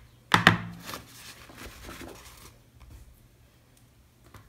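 Hand handling of cardmaking materials on a craft mat: a sharp knock about half a second in, then soft paper rustling and a few light taps that die away to quiet.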